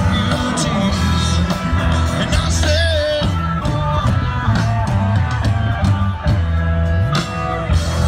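Live rock band playing: a singer over guitar and a strong, shifting bass line, with regular sharp beats.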